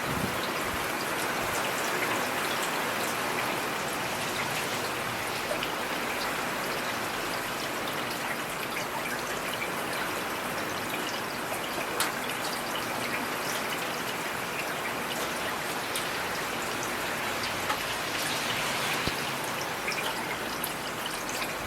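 Steady rainfall: a dense, even hiss of rain with scattered sharper drop ticks, a few louder ones standing out.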